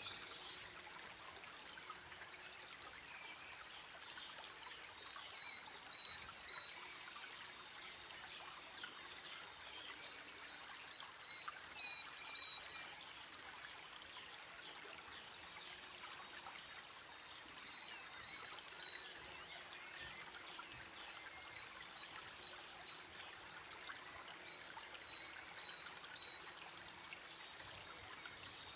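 A steady running-water hiss like a stream, with a bird repeating short runs of quick, high chirps every several seconds.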